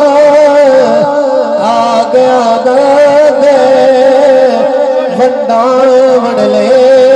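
A man singing a Punjabi devotional naat into a microphone, amplified through a PA loudspeaker. He holds long, wavering, ornamented notes without breaking into clear words.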